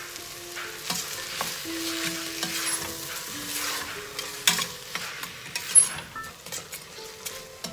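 Chopped tomatoes being stirred into onions frying in oil and ghee in a stainless-steel pressure cooker with a steel ladle: steady sizzling with the ladle scraping, and two sharp knocks of the ladle against the pot about four and a half and six seconds in.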